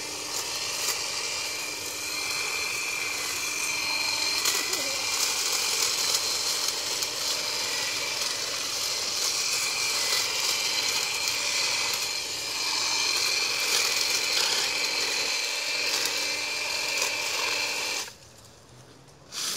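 Makita 18-volt cordless hedge trimmer with a 22-inch blade running steadily while cutting through vines and brush. It stops about a second and a half before the end, followed by a brief burst.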